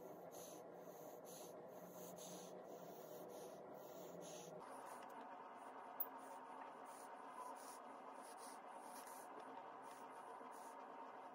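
Near silence: faint room hiss with soft, regular ticks about two to three a second, and a single sharp click about six seconds in.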